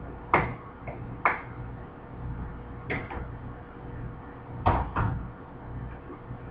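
Sharp clacks and knocks of hard objects being handled or shut, about five in all: two loud ones in the first second and a half, a softer one around three seconds, and a close pair near the end. Beneath them runs a steady low hum of kitchen machinery.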